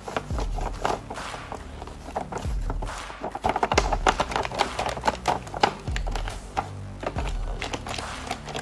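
Background music with a deep bass beat about once a second and many sharp clicks and ticks over it.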